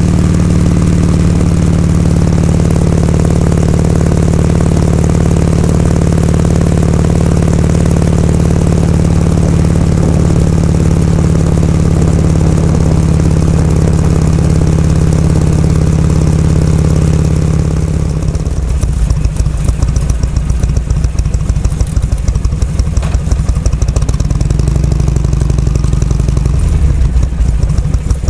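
Harley-Davidson Shovelhead FLH's V-twin engine running at a steady pitch, as when cruising, then about two-thirds of the way through dropping to a lower, pulsing beat as it slows toward idle.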